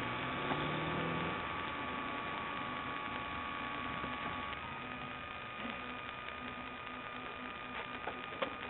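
Steady electrical hum and static hiss from a police car's dash-camera audio, with a faint low note rising briefly during the first second or so.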